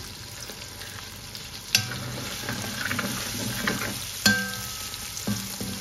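Onions, garlic, chili and dry smoked catfish sizzling in hot oil in a wok while a metal spoon stirs and scrapes through them. The spoon knocks sharply against the pan twice, just under two seconds in and again past four seconds, each knock ringing briefly.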